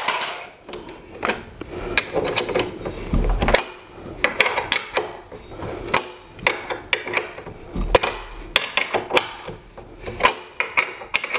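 Irregular metal clicks and knocks from a steel articulating TV wall mount bracket being handled as the last side of the TV is locked onto it, with dull thumps about three seconds in and again near eight seconds.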